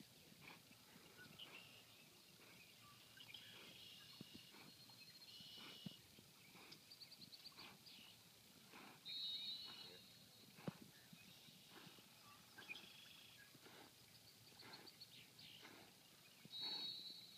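Faint high-pitched chirping and trilling calls of small wild animals, repeating every second or two and louder in two short spells, about nine seconds in and near the end. A single sharp click comes about ten and a half seconds in.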